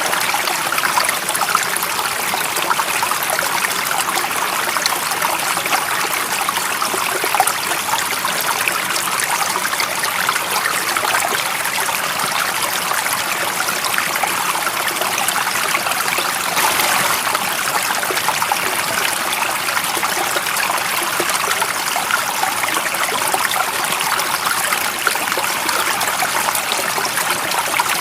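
Running water of a stream, a steady, unchanging rush that sits high and hissy rather than deep.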